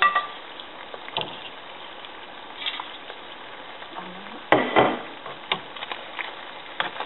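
Whole trout sizzling in hot oil in a frying pan, a steady crackle, with metal tongs clicking and scraping against the pan as the fish are handled, loudest about four and a half seconds in.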